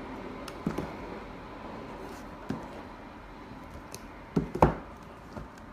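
Cardboard product box being handled and opened, with a few soft knocks and scrapes of cardboard; the loudest comes a little past four seconds in, as the inner box is lifted out.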